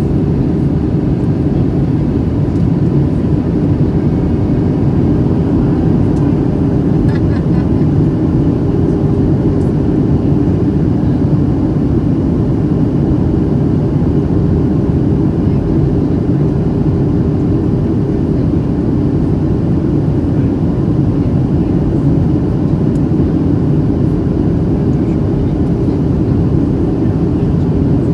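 Steady cabin noise of a Boeing 737-700 in flight: a constant low rumble from its CFM56-7 jet engines and the airflow over the fuselage.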